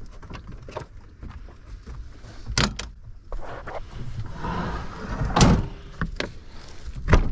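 Metal dog-box kennel doors clanking shut and latching in a pickup bed, with a few sharp metal slams and knocks. The loudest slam comes about five and a half seconds in and another near the end.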